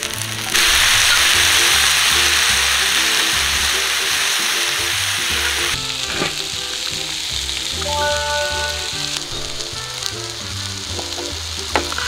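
Food sizzling and frying in a pan. The sizzle starts abruptly about half a second in, is loud for about five seconds, then carries on softer, with background music underneath.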